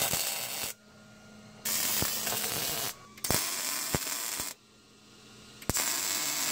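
MIG welder laying tack welds on a steel roll cage: four crackling bursts of about a second each, with short pauses between.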